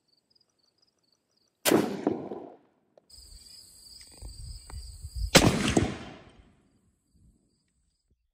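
A Boys Mk I anti-tank rifle firing a .55 Boys round: a sharp, heavy blast, made harsher by the rifle's muzzle brake, with a short decaying tail. The shot is heard twice, about three and a half seconds apart; the second time it comes through a different microphone, over steady hiss.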